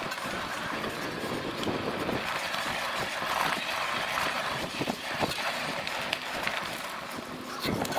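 Cyrusher Ranger electric bike ridden over a bumpy dirt woodland trail: steady tyre and running noise with irregular knocks and rattles over bumps. A grating comes from the front wheel, which the rider suspects is the brake caliper rubbing on the rotor.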